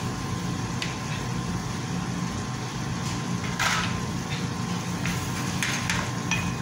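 Light clicks and knocks of kitchen utensils being set down beside a pan on the stove, with one brief rustling clatter about three and a half seconds in, over a steady low hum.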